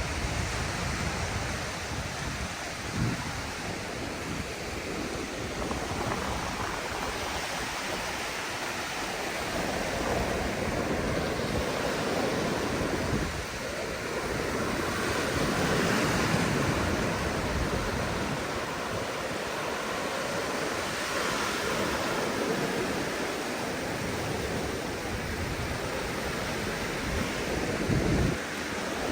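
Sea surf breaking and washing up a sandy beach, the rush of water swelling and easing in waves, with wind buffeting the microphone now and then.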